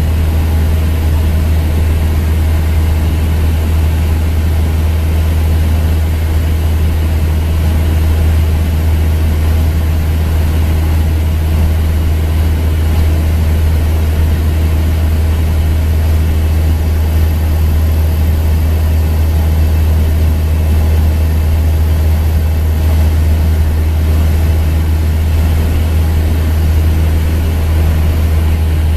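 Cessna 172's piston engine and propeller droning steadily in cruise, heard from inside the cabin as a loud, even, low hum.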